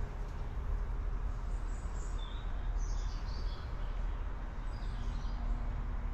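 Outdoor ambience: a steady low rumble with a few faint bird chirps from about a second and a half in until shortly before the end.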